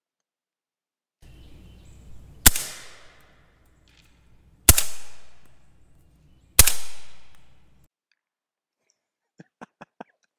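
Three suppressed rifle shots from a short-barreled 300 Blackout rifle fired through a homemade Form 1 suppressor built for subsonic ammunition, about two seconds apart. Each is a sharp report with a short tail that fades over about a second. A few faint clicks follow near the end.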